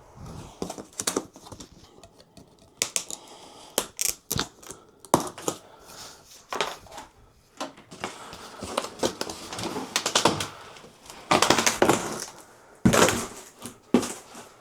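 Irregular clicks, knocks and clatter, with a few longer scrapes near the end, as parts of a 5-tier shelving rack are handled.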